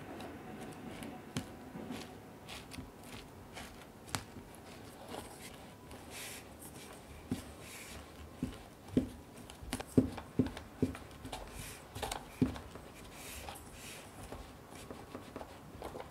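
A silicone spatula scrapes and presses crushed biscuit crumbs mixed with melted butter into a paper-lined cake tin, packing down a cheesecake base. It makes soft gritty scrapes, with a cluster of sharp taps midway through.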